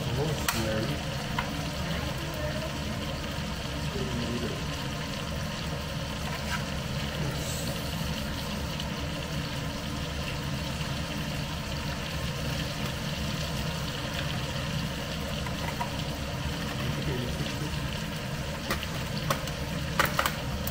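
Steak sizzling in frying pans on a gas hob, over a steady mechanical hum, with a couple of sharp clicks near the end.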